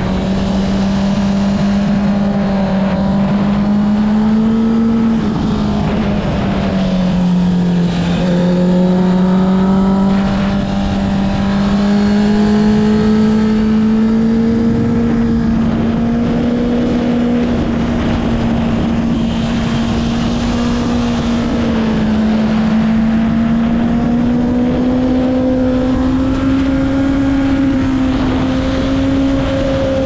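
Honda CB650R's inline-four engine through an Akrapovic exhaust, pulling at steady, fairly high revs, over a steady rush of wind. Its pitch dips and climbs back slowly around six to eight seconds in, dips briefly again a little past twenty seconds, then rises gently near the end.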